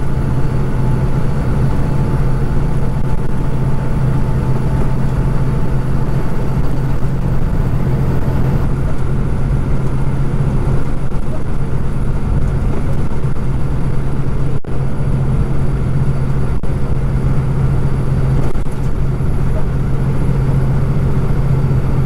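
Kenworth truck pulling a triple road train at steady highway speed: an even engine drone with tyre and road noise, unchanging throughout.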